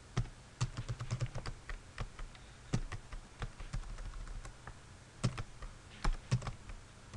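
Typing on a computer keyboard: irregular keystrokes with short pauses, a few keys struck harder than the rest.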